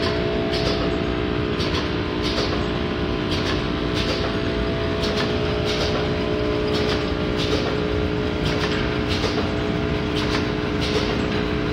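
Small moist toilet tissue making and packing machine running: a steady motor hum with several held tones, and a short crisp stroke repeating a little more than once a second with each machine cycle.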